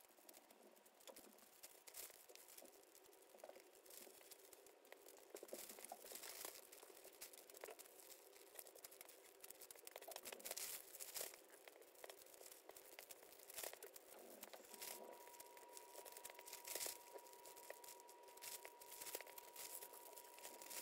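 Faint crinkling and rustling of small clear plastic bags of diamond painting drills being handled and sorted, in irregular crackly clusters. A steady thin tone comes in about three-quarters of the way through.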